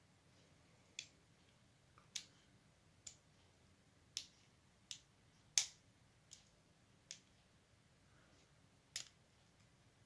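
A Peterson standard hook pick working the pins of a Master Lock Excell 80mm discus padlock under tension, giving about nine faint, sharp clicks spaced irregularly roughly a second apart, the loudest just past the middle.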